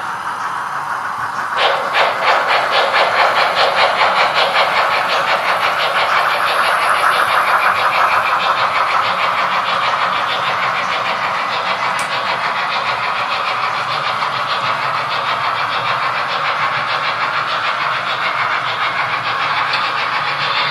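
Steam locomotive chuffing in a quick, even rhythm of exhaust puffs with steam hiss, starting about a second and a half in, as from a model steam engine running on its track.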